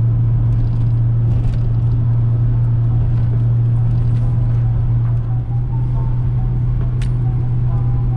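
Steady low drone of engine and road noise heard inside an older Volkswagen's cabin while it is driving, with one sharp click near the end.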